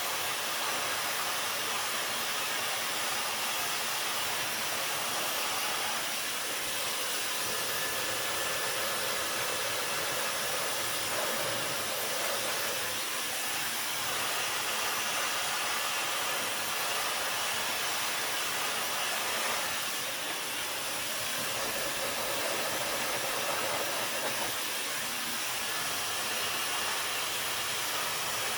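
Dyson hair dryer running steadily on its second heat setting while drying hair: an even rushing hiss of air with a faint steady whine.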